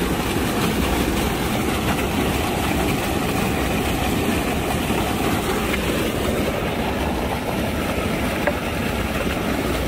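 Steady rushing of churning white water breaking against the rocks at the foot of a seawall, a low, unbroken noise.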